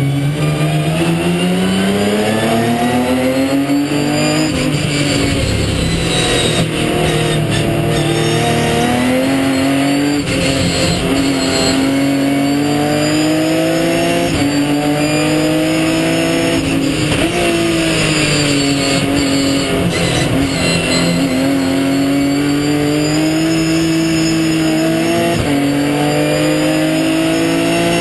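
Ginetta G50 race car's 3.5-litre Ford V6, heard from onboard at racing speed. The engine note repeatedly climbs under throttle and drops sharply at each gear change, over steady road and wind noise.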